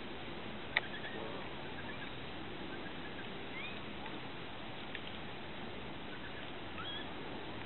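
Faint outdoor hiss with scattered short, high animal calls, some rising in pitch. A single sharp click comes about a second in.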